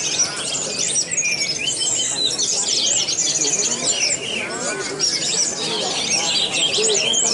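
An orange-headed thrush singing a fast, varied stream of high chirps and whistles, overlapping with the songs of many other songbirds.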